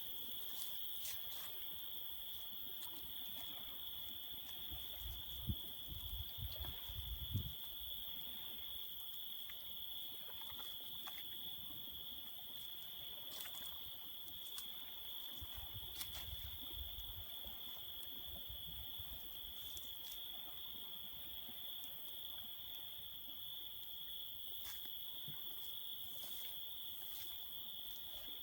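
Crickets trilling steadily at night, one continuous high-pitched drone, with scattered faint clicks and two brief low rumbles.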